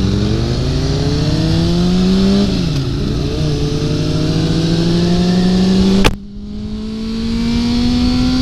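Sport motorcycle engine accelerating under load. Its pitch climbs steadily, drops briefly for an upshift about two and a half seconds in, then climbs again. About six seconds in there is a sharp click and the sound falls away abruptly, then the engine carries on at a slowly rising pitch.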